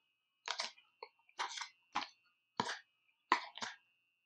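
A man coughing and clearing his throat, about seven short bursts in a row, while eating spicy noodles.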